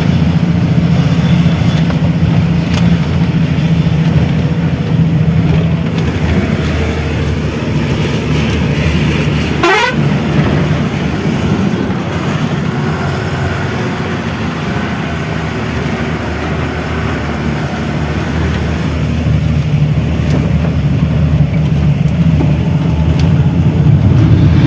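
A vehicle engine runs steadily, a continuous low hum as of riding along a road, with a horn sounding briefly about ten seconds in.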